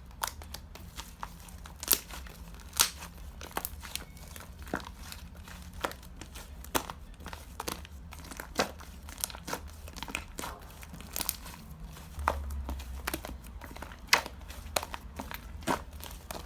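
Slime being squished and pressed by hand, giving irregular sharp clicks and crackling pops.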